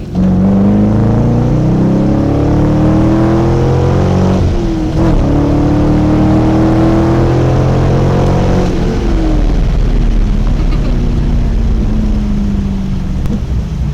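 Car engine with a loud exhaust accelerating hard. The pitch climbs, drops briefly about five seconds in as it shifts up a gear, climbs again, then falls away gradually as the car eases off.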